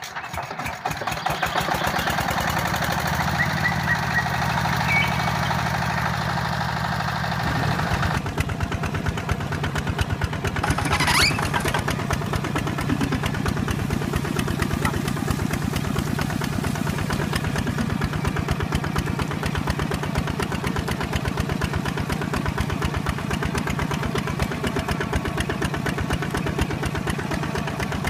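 Small engine of a DIY RC mini hand tractor starting up and then running with a rapid, even putter. It changes pitch about eight seconds in and then runs steadily.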